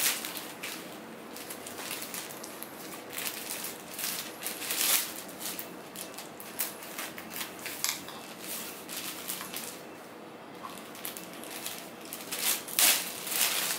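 Scissors snipping and paper crinkling as a shot-up paper target is cut apart: irregular snips and rustles, with louder crunches about five seconds in and again near the end.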